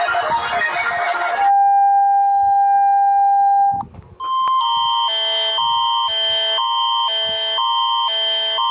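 Music ends about a second and a half in and gives way to a long, steady electronic beep tone. After a brief break with a click, a synthesized alert tone pattern starts, switching rapidly between pitches and repeating over and over, as in a mock Emergency Alert System alarm.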